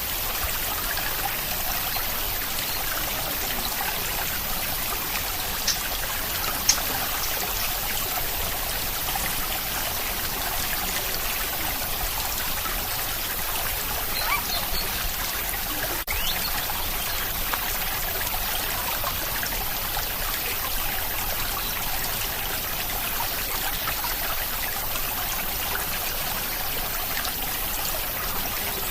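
Steady rain with water trickling, and a few sharper drips standing out now and then.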